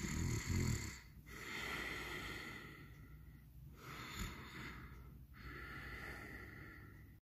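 A person making mock snoring sounds for a sleeping toy character: slow, noisy breaths in and out, about four in all, each lasting one to two seconds.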